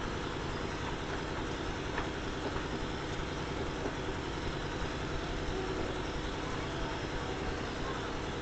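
Steady rumbling background noise with a few faint clicks scattered through it.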